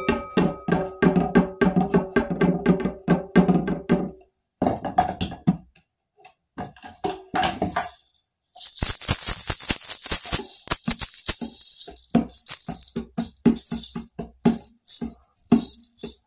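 Percussion music: quick struck notes over steady pitched tones, cut off abruptly into silence several times. About halfway in, a loud shaken rattle of tambourine or maraca kind takes over for a few seconds, then quick strikes return.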